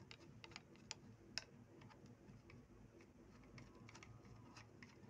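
Faint clicks and light metal ticks of a screwdriver working in the feed dog screws of a sewing machine as they are loosened, a few sharper clicks in the first second and a half and scattered weaker ticks later.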